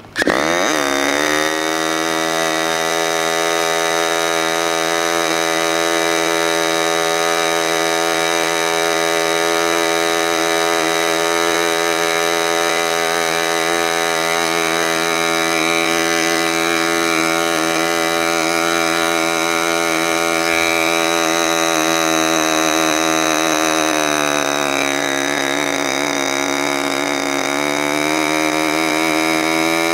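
K&B .61 two-stroke glow-fuel model airplane engine catching at once on an electric starter, revving up and running at high speed with a steady note. About 24 seconds in its speed drops and then slowly climbs back as it is adjusted by hand at the carburettor.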